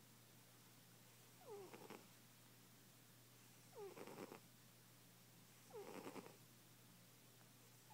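A cat snoring, three breaths about two seconds apart, each sliding down in pitch.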